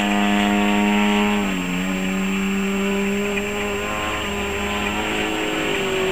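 Extra 300 aerobatic plane's engine and propeller running steadily in flight, with a slight drop in pitch about a second and a half in.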